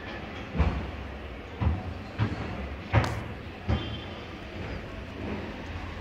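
A run of about five dull thumps and knocks in the first four seconds, one of them with a sharp click, over a steady low background rumble.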